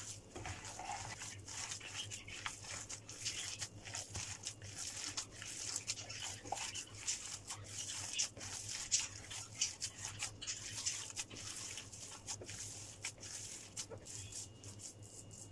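Hands kneading wet raw ground-meat köfte mixture in a glass bowl: soft, irregular squelching and squishing, with quick small clicks.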